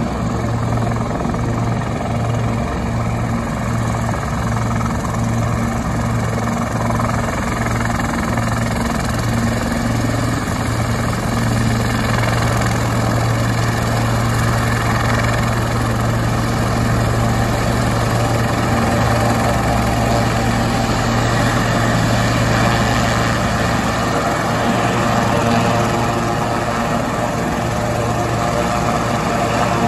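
Sikorsky S-76C helicopter running on the ground, its twin Turbomeca Arriel 2S2 turboshaft engines and turning rotors making a steady, loud drone with a rotor beat. It grows somewhat louder as the helicopter taxis close by.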